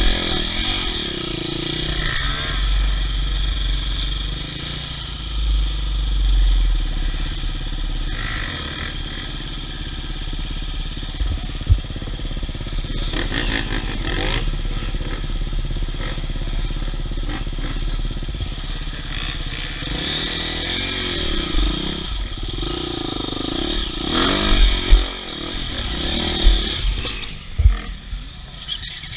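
Off-road enduro motorcycle engine running, with the revs rising and falling a few times. Bursts of deep low rumble come through early on.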